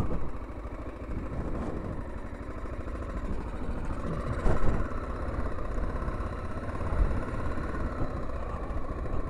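Single-cylinder 589cc engine of a Honda XL600R dirt bike running steadily as the bike is ridden slowly over a rough grass and mud track, with a brief louder burst about four and a half seconds in.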